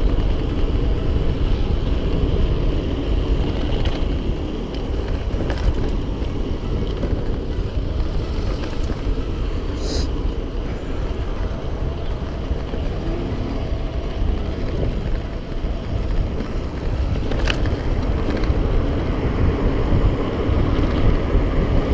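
Steady rumbling wind and road noise of a bicycle ride along a street, with a couple of short clicks.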